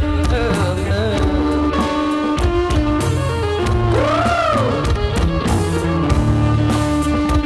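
Music with a steady drum beat under held melody notes and a bass line; about four seconds in, one note bends up and back down.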